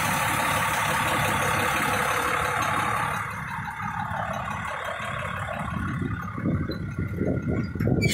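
International 4300 truck's diesel engine idling, under a loud steady hiss that drops away about three seconds in. Irregular low thumps come in over the last couple of seconds.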